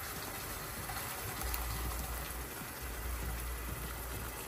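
Thick blended tomato puree poured from a plastic bowl into a pan of frying chicken, the pan sizzling steadily as it goes in, with a low rumble through the middle.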